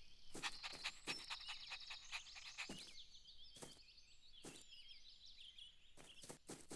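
Faint birdsong ambience: many short, quick chirps, with a few light clicks scattered through it and a small cluster of clicks near the end.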